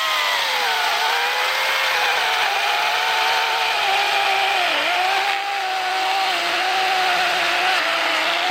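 Oregon self-sharpening chainsaw running at speed and cutting through a dry log. Its pitch sags in shallow dips as the chain bites, most deeply about five seconds in.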